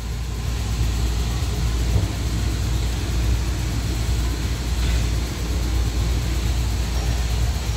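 Steady low rumbling drone of running machinery, with a faint steady hum tone over it and a faint click about two seconds in and another near five seconds.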